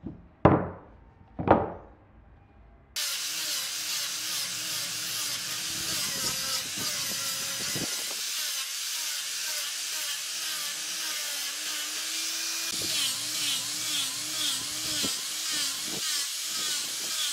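Two sharp wooden knocks, then an angle grinder with a sanding disc starts about three seconds in and runs on, sanding wood; its motor pitch wavers up and down as the disc is pressed against the work.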